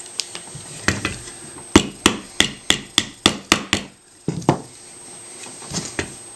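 Rear trigger housing pin being tapped into a Glock 34's frame: a run of about eight sharp taps, three or four a second, starting about two seconds in, then a few more scattered taps.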